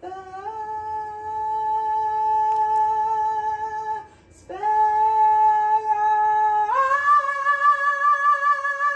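A man singing long, high held notes in a deliberately overdone, joking way, with no instrument. He pauses for a breath about four seconds in, then steps up to a higher note with a wobbling vibrato near the end.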